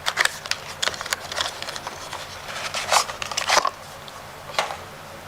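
Items and packaging being handled during unboxing: a string of clicks, light knocks and rustles, loudest about three seconds in.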